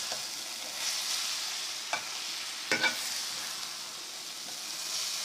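Grated carrot halwa frying in desi ghee, sizzling steadily as it is stirred, with the stirring utensil clinking against the pan once about two seconds in and twice a little under three seconds in.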